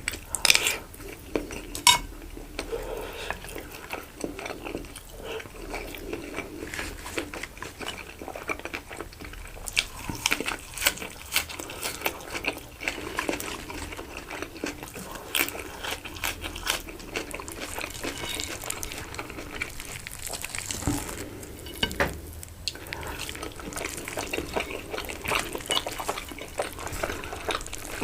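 Cutlery clinking and scraping on a plate during close-miked eating, with many short sharp clicks; the loudest two come in the first two seconds.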